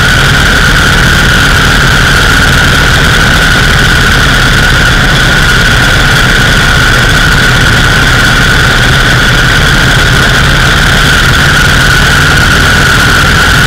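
Vintage Indian 101 Scout motorcycle's V-twin engine running steadily while riding at an even speed, with wind rushing past and a steady high-pitched whine over it.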